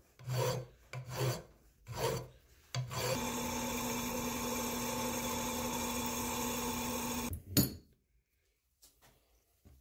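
About four strokes of a hand tool worked back and forth on metal, roughly one a second, then a shop machine running steadily with a steady hum for about four seconds. It stops with a single sharp knock, followed by near silence.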